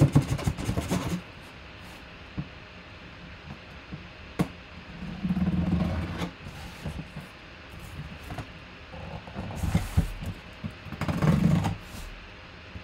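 A cardboard box being cut open along its taped seam with a box cutter and handled. There are sharp clicks at the start, then two longer scraping spells about five and eleven seconds in.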